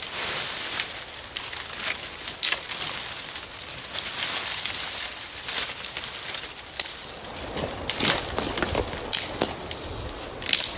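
Dry fallen leaves crunching underfoot and dead sticks cracking and snapping as branches are gathered for firewood, with a run of sharp cracks near the end.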